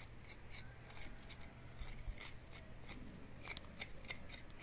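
Knife scraping the skin off a chayote root, a run of short, crisp scrapes a few times a second.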